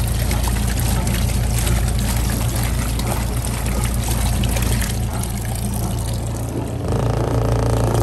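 Kuppet portable washing machine running: a steady motor hum under the splash and churn of water in the wash tub. The hum grows louder about seven seconds in.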